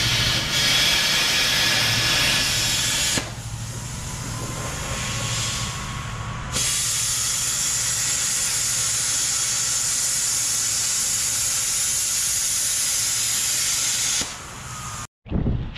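Hand-held plasma cutter cutting through steel frame bolts: a loud, steady hiss in two long runs, with a quieter stretch between them from about three to six and a half seconds, and a low steady hum underneath. The sound cuts off suddenly near the end.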